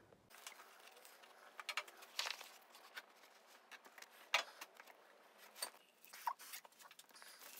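Faint rustling and light clicks of nitrile-gloved hands handling a paper shop towel and the damper rod at the top of a motorcycle fork tube, with a brief squeak about six seconds in.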